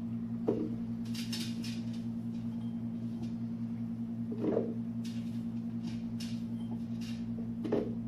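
Pieces of cut carrot dropped by hand into a plastic blender jar: three soft knocks, about half a second in, midway and near the end, with faint rustling between. A steady low hum runs underneath.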